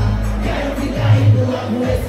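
Loud live music played through a concert PA, with a deep, heavy bass line, and crowd noise beneath it.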